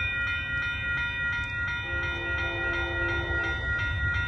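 Horn of the approaching Amtrak P42 locomotive, heard from a distance as a brief soft chord about two seconds in. Under it are a steady high ringing and a low rumble.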